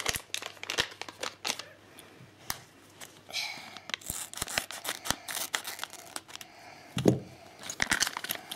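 Thin plastic blind-bag packet of Lego minifigures being torn open and crinkled in the hands, with many sharp crackles and a few longer rustles.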